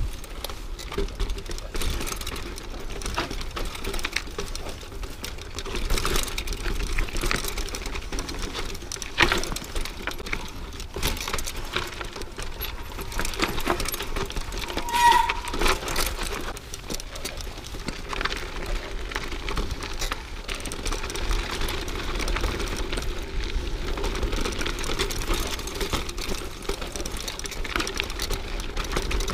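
Mountain bike rolling over a rough dirt singletrack, its frame and parts rattling and clicking quickly over the bumps along with the noise of the tyres on the dirt. A brief high squeak about halfway through.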